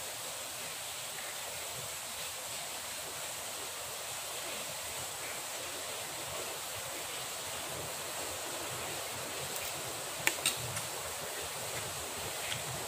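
Steady rain falling, a continuous even hiss. A few short sharp clicks sound over it about ten seconds in and again near the end.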